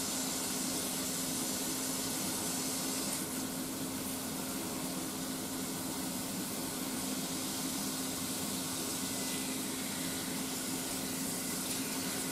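Sliced pork sizzling steadily in a frying pan, over a steady low hum.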